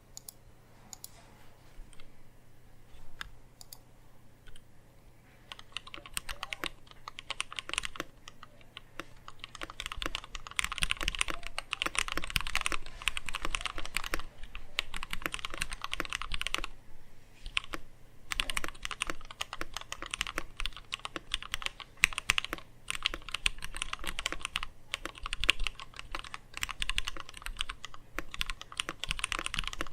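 Typing on a mechanical keyboard with lubed Gateron Black linear switches (Cherry switch tops), a top-mount stainless steel plate and Tai Hao ABS keycaps. A few scattered keystrokes come first, then steady fast typing from about six seconds in, with a couple of brief pauses.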